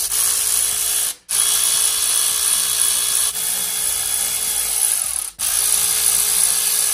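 Cordless electric ratchet with a 9/16 socket running, spinning bolts out of a transmission shift cover: a loud, steady whir with a faint steady tone. It stops briefly twice, about a second in and again about five seconds in.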